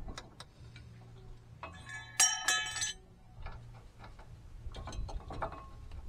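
Hand tools and metal parts clinking and ticking against a truck's front hub and suspension, with a burst of bright, ringing metal clinks about two seconds in.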